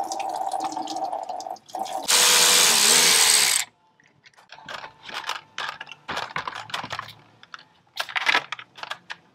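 Cordless electric ratchet running: a steady whine through the first second and a half, then a loud spell of about a second and a half starting about two seconds in as a bolt is run out. After that come scattered clicks and a clatter of plastic and metal as the radiator fan assembly is handled and lifted out.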